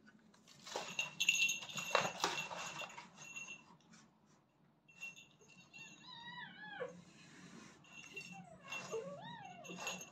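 Kittens scuffling on a tiled floor, with rustling and knocks for the first few seconds. Then a kitten mews twice in thin, wavering cries, about six and nine seconds in.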